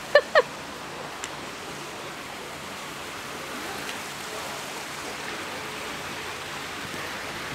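A small stream running, a steady even rush of water.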